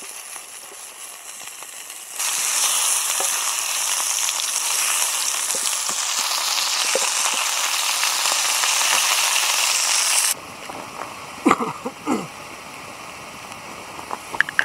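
Food frying in a steel pan over a Swedish fire torch: a loud, steady sizzle that starts about two seconds in and cuts off abruptly about ten seconds in. A few sharp crackles and knocks follow near the end.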